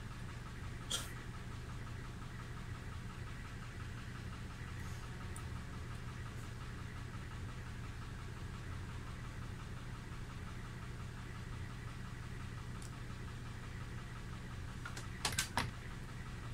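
Steady mechanical hum with a fast, even ticking running under it. A sharp click comes about a second in, and three quick sharp clicks come near the end, as pliers work a capacitor loose from a gauge's circuit board during desoldering.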